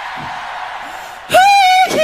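Crowd cheering, with a loud, high, held whoop or shriek breaking out about one and a half seconds in.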